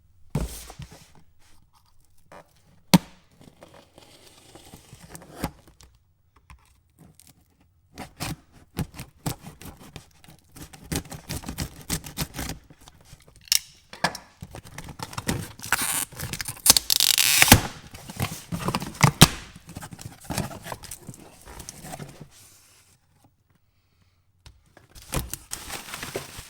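A cardboard shipping box being opened and handled: scattered thunks, knocks and scrapes, with a loud stretch of tearing a little past the middle.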